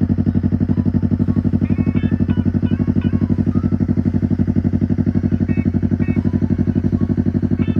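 Engine of a home-built bike running steadily at an even, fast beat with no revving.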